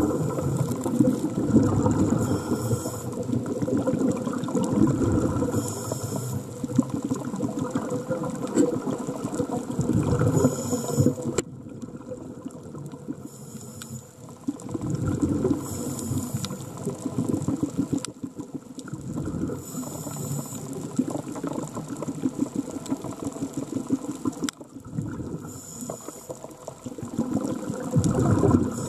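Scuba diver breathing through a regulator underwater: a short hiss on each inhale, then a crackling rush of exhaled bubbles, repeating every few seconds.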